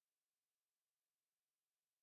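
Near silence: the soundtrack is essentially empty, with only a faint digital noise floor.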